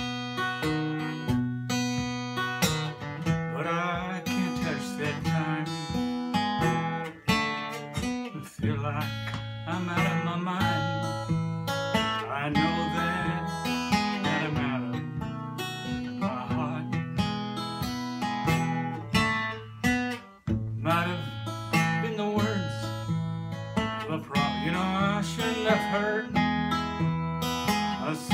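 A man singing a slow song in phrases, accompanying himself on a steel-string acoustic guitar.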